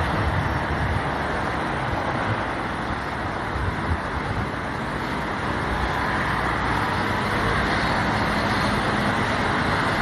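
Steady road traffic noise: a continuous wash of cars passing on busy roads.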